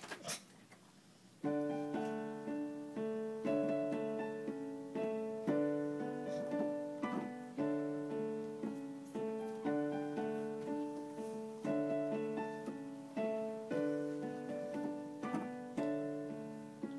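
Digital piano played by hand: a steady melody over chords, struck notes ringing out and fading, starting about a second and a half in.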